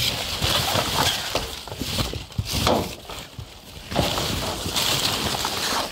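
Plastic bags and cardboard rustling and crinkling in irregular bursts as a hand rummages through rubbish in a metal dumpster.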